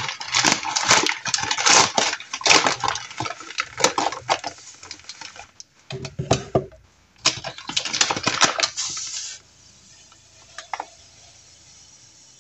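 A large bag of granulated sugar crinkling and rustling as it is handled, and white sugar pouring from it into a clear storage canister with a granular patter. The sound cuts down suddenly to a faint steady hiss about nine and a half seconds in.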